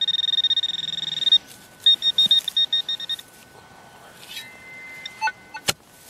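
Garrett pinpointer sounding its high electronic alert as it is pushed into the dirt of a dug hole. The tone sounds continuously with a fast pulse, then breaks into a run of quick separate beeps, the signal that a metal target lies close to the probe tip. A single sharp knock comes near the end.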